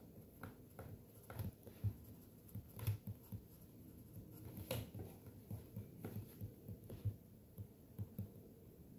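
Stylus tapping on a tablet's glass screen during handwriting: a run of soft, irregular taps several a second, with a couple of sharper clicks about three and five seconds in.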